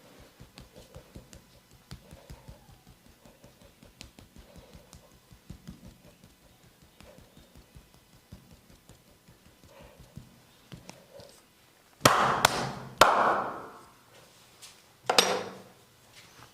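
Percussive back massage: quick, light, rhythmic tapping on the body, then three loud smacks in quick succession and one more about three seconds later.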